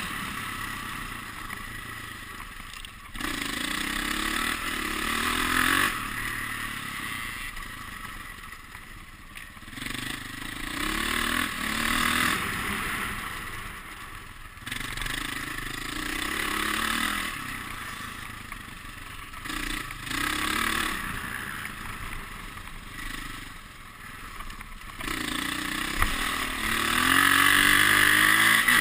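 Dirt bike engine being ridden hard, revving up and falling back over and over: the pitch climbs with each burst of throttle and drops when it closes, every few seconds.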